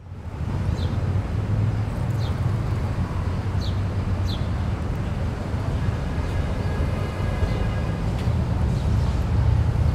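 Outdoor background noise: a steady low rumble with a few short, high chirps over it.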